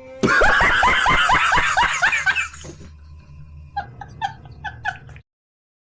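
A person laughing hard in a rapid string of short bursts for a couple of seconds, followed by a few quieter laughs near the end before the clip cuts off.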